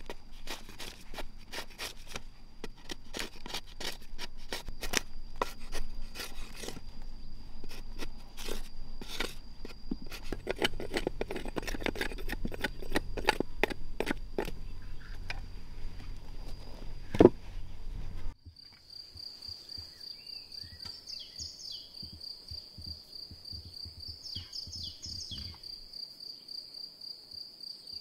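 Hand tool scraping and knocking the bark off a log in a rapid, irregular series of strokes, with one loud knock near the end of the stripping. After an abrupt cut, a steady high insect chirr with light pencil scratching on the wood.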